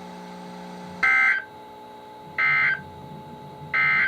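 NOAA Weather Radio SAME end-of-message data bursts: three short, buzzy digital bursts about a second apart, the code that marks the end of an alert message. They sit over steady radio hiss, and a low hum cuts off at the first burst.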